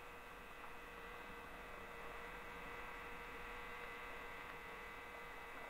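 Faint steady hum with a couple of fixed, unchanging tones over quiet background noise.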